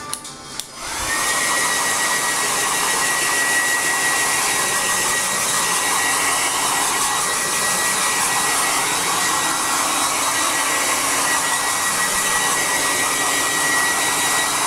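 Handheld hair dryer switched on about a second in, spinning up and then running steadily: rushing air with a thin, steady high whine over it.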